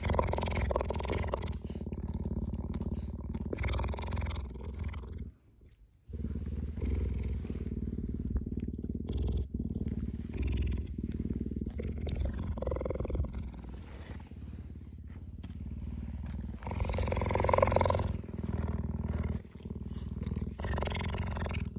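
Cheetah purring steadily close up, with louder stretches every few seconds and a short break about five seconds in.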